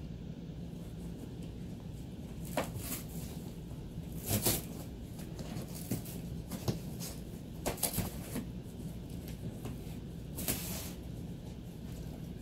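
Husky puppy chewing and tearing at a cardboard box: scattered bursts of cardboard scraping and ripping, over a steady low hum.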